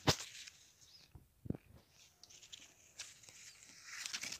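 Faint handling sounds, a sharp click at the start and a soft knock about a second and a half in, then tembhurni leaves rustling as they brush close against the microphone near the end.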